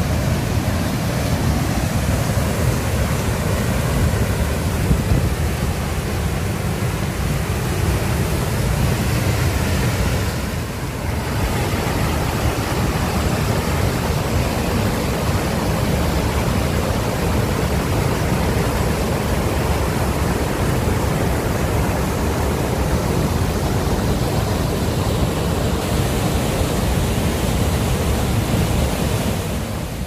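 Waterfall: river water pouring steadily over rock steps, a continuous rushing noise that is heavy in the low range. It dips briefly about ten seconds in.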